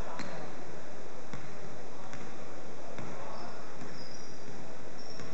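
Basketball bouncing on the hardwood gym floor, about five irregularly spaced thuds, with a few brief high squeaks in the middle.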